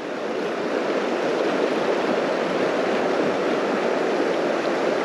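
Steady rush of flowing water in a trout stream.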